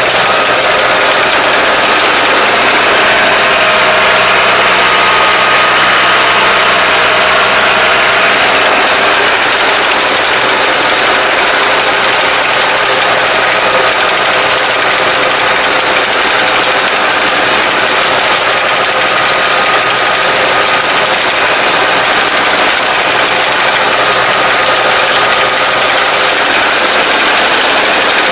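A tractor's engine running steadily under load together with a tractor-drawn round baler at work, its pickup gathering rice straw: one loud, unbroken mechanical din with no change in pace.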